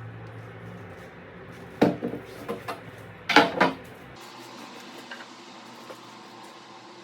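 A few sharp knocks and clanks of hard objects handled on a hard surface, in two short clusters.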